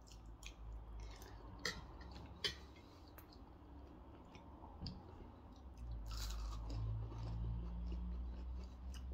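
Crisp fried onion fritters (piyaji) being broken apart by hand and eaten, with crunching and chewing. A few sharp clicks, like a fork on a plate, come in the first three seconds, and the sound grows louder and denser about six seconds in.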